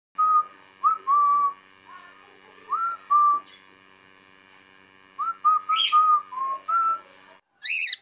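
Cockatiel whistling: clear single-pitch notes, many starting with a quick upward slide, in two short phrases over a faint steady hum. Near the end comes one short, harsher chirp.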